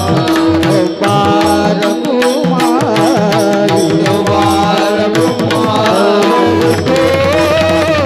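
Marathi devotional bhajan music: tabla-style drumming in a steady rhythm under a wavering melody and a held drone note.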